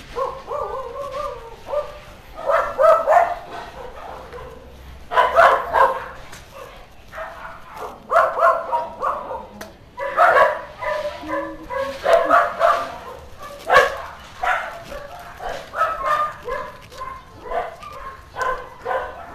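A dog barking repeatedly, in short bursts that come every second or two.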